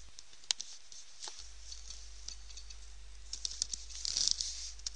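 Computer keyboard keystrokes: a couple of single clicks, then a quick run of key presses about three and a half seconds in.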